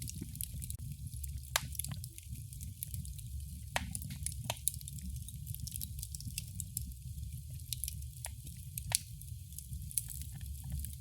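Wood fire crackling in a fireplace: scattered sharp pops and snaps, a few every couple of seconds, over a steady low rumble and hiss of burning.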